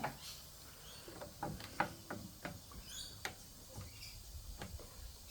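Scattered, irregular clicks and ticks of plastic parts being handled, as the solenoid coil is worked loose from a washing machine's water inlet valve.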